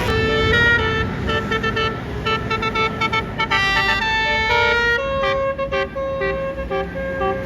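Basuri horn on an Indonesian tour bus, the multi-note electric horn behind the 'telolet' sound, playing a tune over vehicle rumble. It plays a quick run of short notes, then longer held notes from about five seconds in.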